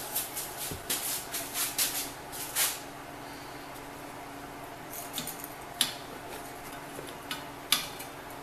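Gloved hands handling locking clamps on a steel angle-iron rail. A run of brief scuffing rustles comes first, then it is quieter, and later there are two sharp metal clicks.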